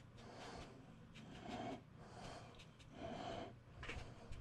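Foam sponge applicator rubbing PanPastel into paper to blend it: a run of faint scrubbing strokes, about one or two a second.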